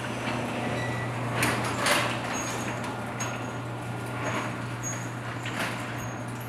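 Sectional garage door rolling down on its track, its panels clattering and rattling several times over a steady low hum.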